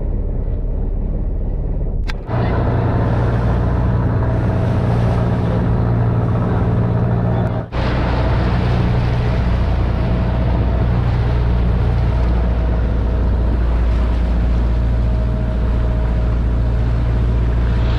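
Wooden fishing boat's inboard engine running steadily under way, with water rushing along the hull. The sound breaks briefly twice, about two seconds in and near the middle.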